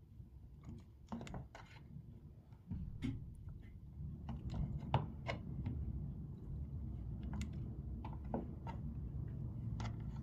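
Kitchen knife slicing through a block of cheese and tapping on a plastic cutting board: light, irregular clicks and knocks. A low steady rumble comes in about three seconds in and runs under them.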